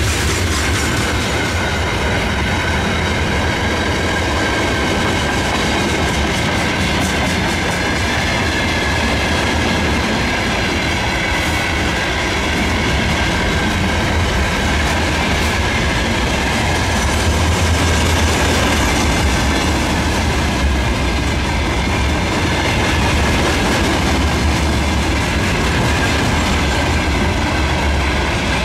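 Freight train rolling past, its wheels rumbling steadily with a clickety-clack over the rail joints and a faint steady ringing from the wheels.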